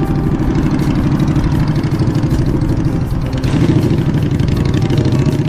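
An engine running steadily and loud at close range, with a fast, even pulse to its low rumble.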